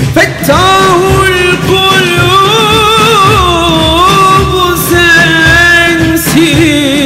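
Turkish ilahi (hymn) music: one ornamented melodic line of long held notes with bends and turns over a pulsing low rhythm backing.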